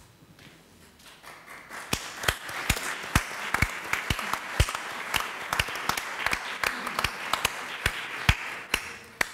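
Audience applauding, building up about a second in and dying away near the end, with loud single hand claps close to the microphone standing out above the crowd's clapping.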